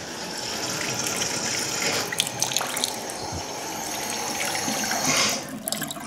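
Bathroom faucets running a full, steady stream of water into the basin, the hot-water lines purged of air after a water heater refill. The hiss drops off about five seconds in.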